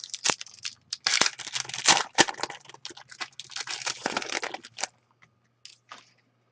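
Foil wrapper of a sports card pack being torn open and crinkled, a dense crackling rustle that stops about five seconds in, followed by a few faint ticks as the cards are handled.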